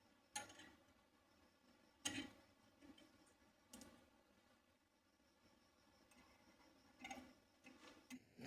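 A few faint, irregularly spaced clicks and taps of small spray gun parts being handled.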